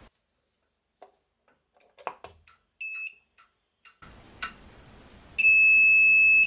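Artillery Sidewinder X2 3D printer's buzzer beeping: a short beep about three seconds in, then a longer, louder steady beep near the end, with a few light clicks before it.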